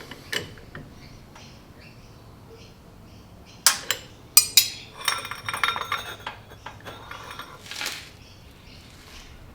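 Light metallic clinks and knocks of tools and metal parts being handled on a workbench. Two sharp clinks come a little under four seconds in, a cluster of small rattling clinks follows, and there is a short hiss near the end.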